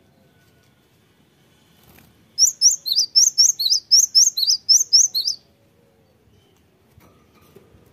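Cinereous tit (gelatik batu) singing: about two seconds in, it gives a rapid string of about a dozen sharp, high whistled notes, roughly four a second, each a quick falling-then-rising flick. The run lasts about three seconds.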